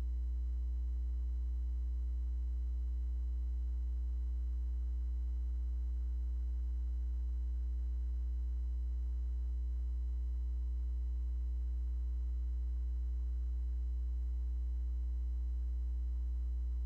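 Steady low electrical mains hum with a stack of fainter, higher buzzing overtones. It never changes, and no voice or music sounds over it.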